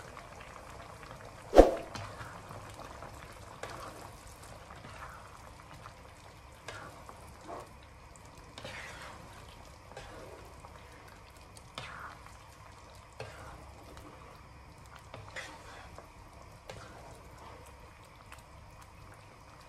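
Thick curry sauce simmering in a frying pan, bubbles popping and plopping irregularly every second or so. A single sharp click about one and a half seconds in is the loudest sound.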